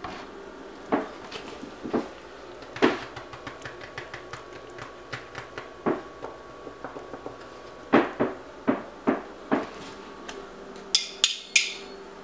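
Metal forks knocking and clinking against a slow cooker's ceramic crock, a dozen or so separate strikes, with a few sharp scrapes about eleven seconds in.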